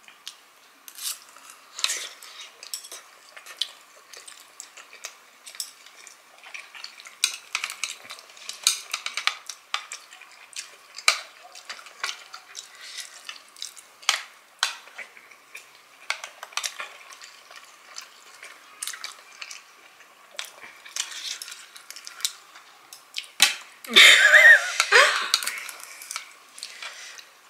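Metal chopsticks clicking and scraping against plates in scattered, irregular taps as dumplings are picked up and dipped. Near the end comes a louder, longer burst of sound.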